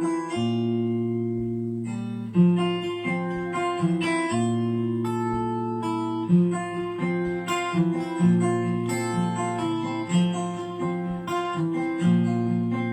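Acoustic guitar strummed, playing the instrumental intro of a song, with the chords ringing on between strokes.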